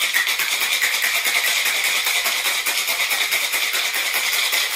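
Ice rattling hard inside a stainless-steel cocktail shaker as it is shaken to chill and mix a drink: a loud, fast, even rhythm of ice striking metal that starts abruptly.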